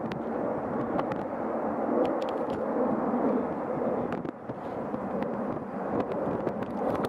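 Boeing 777-200 airliner landing: a steady rushing jet-engine noise as it flares and touches down, with a few faint clicks.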